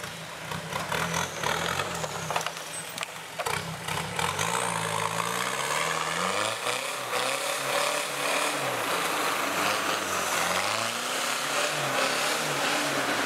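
Diesel 4x4 SUV engine revving up and down, again and again, as the truck claws through deep mud, pouring black exhaust smoke under hard throttle.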